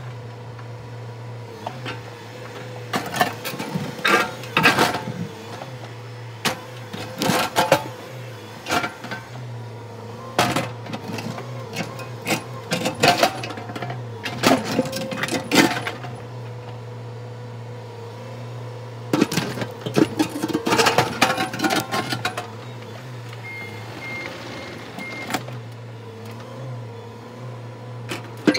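Mini excavator's engine running steadily with a hydraulic whine, while its steel bucket clanks and scrapes against a split boulder in repeated bursts.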